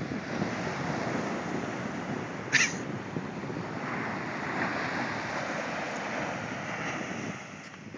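Small waves breaking and washing up on a sandy beach, with wind on the microphone. About two and a half seconds in there is one short, sharp, high-pitched sound, the loudest moment.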